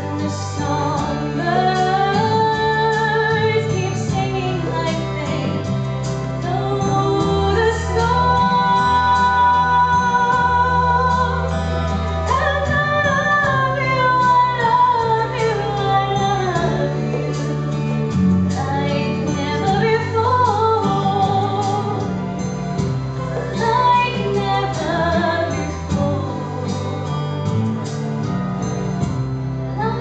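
A young woman singing a slow song solo into a handheld microphone, over a recorded instrumental backing track with sustained low notes. About eight seconds in she holds one long note for a few seconds.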